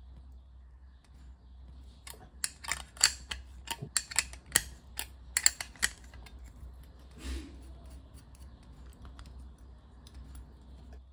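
Sharp metallic clicks from a spanner working the nut on the flange of a washing-machine heating element: about a dozen irregular clicks over some four seconds, then a brief handling noise.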